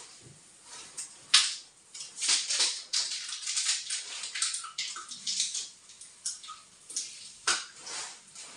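Hands working at a kitchen counter: a run of short, irregular scraping, clinking and splashing sounds, like washing or handling things at the sink and stove, with sharp knocks about a second and a half in and again near the end.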